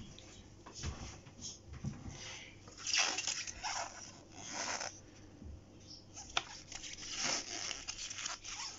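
Paper rustling in several bursts as a thin printed user manual is opened and its pages turned by gloved hands, with one sharp click a little past the middle.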